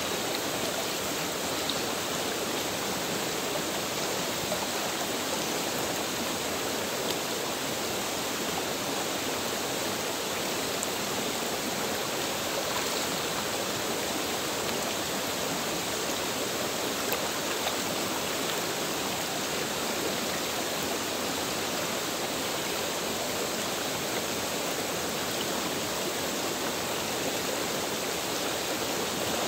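A stream flowing steadily, an even, unbroken rush of water, with a few faint ticks over it.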